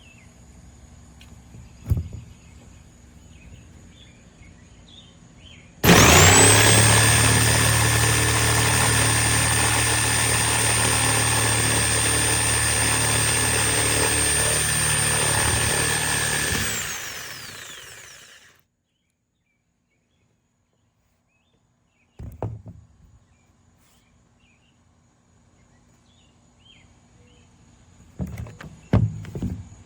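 Hammerhead 4.8-amp jigsaw motor switched on about six seconds in, running loud at a steady speed with a high whine for about ten seconds, then winding down when released. A few short knocks follow near the end.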